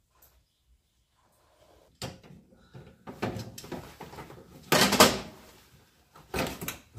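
Handling noises of hand work on parts: irregular rattling and knocking that starts about two seconds in, with a loud knock about five seconds in and another near the end.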